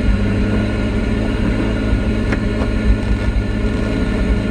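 Pontiac Fiero engine running steadily at idle, with a faint click or two partway through.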